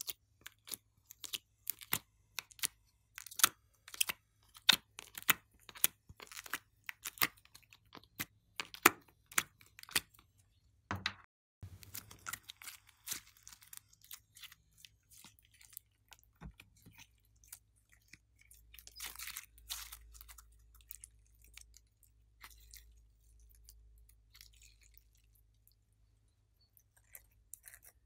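Sticky clicks and pops of slime being pushed out of a flexible plastic ice cube tray, a few a second and irregular, for about the first half. After that come quieter wet crackles as the slime is wiped off the fingers and spread.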